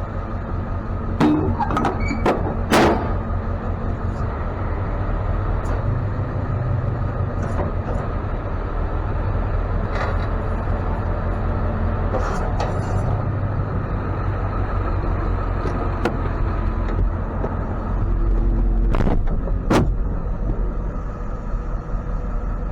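Tow truck running with a steady low rumble, broken by several sharp clanks and knocks, a cluster near the start and two more near the end.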